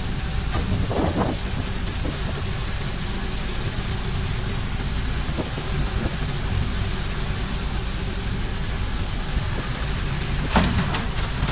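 Steady rumble of a fishing trawler's engine and deck machinery under wind and sea noise, with a few sharp knocks near the end.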